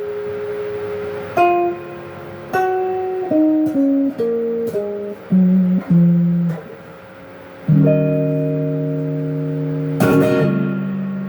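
Electric guitar with humbuckers in the middle position wired out of phase, played with overdrive from a Sonicake Blue Screamer pedal through an amp. It gives a thin, honky tone. A held note with vibrato comes first, then a run of single picked notes, then a chord that is struck again about ten seconds in and left to ring.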